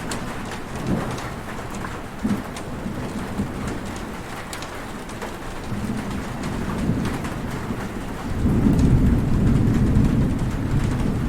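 Heavy rain falling steadily, with sharp drops ticking now and then. A low rumble of thunder swells about eight seconds in and carries on.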